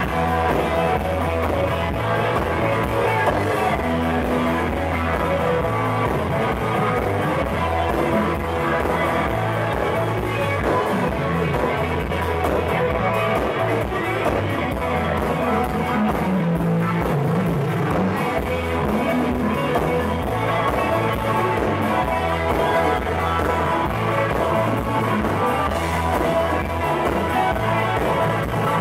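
Live blues-rock band playing an instrumental section of a song, with electric guitar over bass and drums. A harmonica played into a microphone joins near the end.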